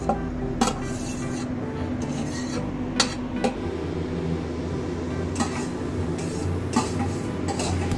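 Cookware being handled: a glass pan lid and a ladle clinking against a steel pan, a few sharp separate clinks spread out over several seconds.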